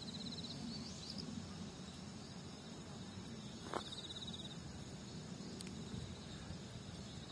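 Short high-pitched insect trills, cricket-like, in bursts of about half a second at the start and again about four seconds in. A steady low outdoor background hum runs underneath.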